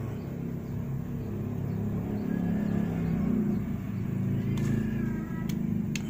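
A steady low mechanical hum, with a few faint high tones in the middle and near the end.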